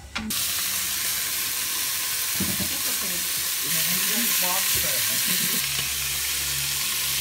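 Beef rouladen frying in a hot pot, a steady loud sizzle.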